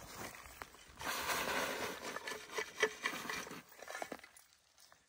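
Loose dirt shaken through a wire-mesh trap sifter, a scratchy pattering of soil falling onto the bedded wolf trap's pan cover to cover the trap. It starts about a second in and dies away near the end.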